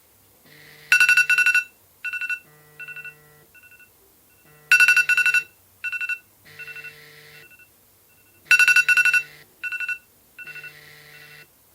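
Electronic ringtone-like melody of beeps and held tones, played three times over, about every four seconds.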